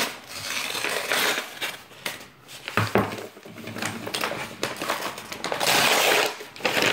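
Padded paper mailer being slit with a knife and pulled open: paper scraping and crinkling, with a sharp knock about three seconds in and a louder tearing rush near the end.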